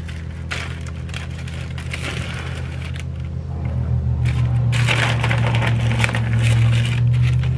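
Plastic bags crinkling and rustling as crispy fried onions are poured from their snack bag into a zip-top bag, in several bursts, loudest about two-thirds of the way through. Under it runs a steady low mechanical drone that grows louder about halfway through.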